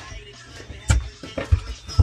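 Background music with a beat of drum hits about every half second.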